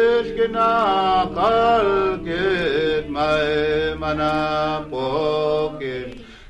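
Music: a single singing voice holding long notes and sliding between them in short phrases, over a steady low sustained accompaniment.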